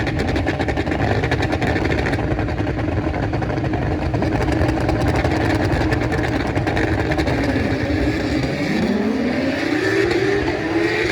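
BTCC touring cars' turbocharged four-cylinder engines running hard at a steady, high pitch. About eight seconds in, an engine's pitch rises steeply as a car accelerates.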